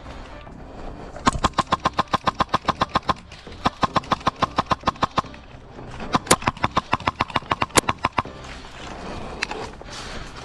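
HPA-powered airsoft SMG (CYMA Platinum 9mm carbine with a Redline N7 air engine) firing three full-auto bursts of about ten shots a second, each a few seconds long, then one lone shot near the end.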